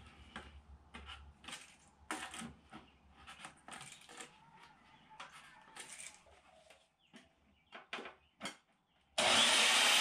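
Faint scratching and light knocks of a pencil and tape measure marking PVC pipe, then about nine seconds in a portable bandsaw switches on and runs with a loud, steady whir.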